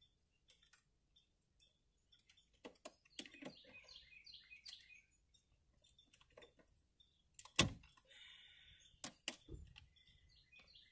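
A few sharp clicks and knocks as a power plug is pushed into a vehicle's cigarette lighter socket, the loudest about seven and a half seconds in, with a pair of softer knocks about two seconds later. Faint bird chirps in short falling runs sound a few seconds in and again near the end.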